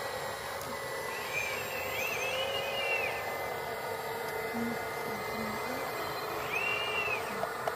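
Diesel engines of two full-size hydraulic excavators, a CAT and a Hitachi Zaxis 360H, running steadily under load while digging and swinging dirt into a dump truck. A high whine rises and falls twice, once early and once near the end.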